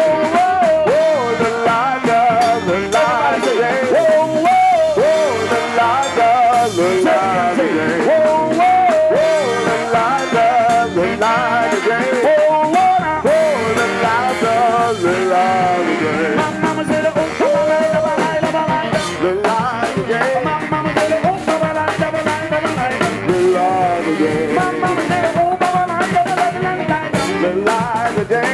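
New Orleans brass band playing live: a horn melody with bent, sliding notes over sousaphone and drums.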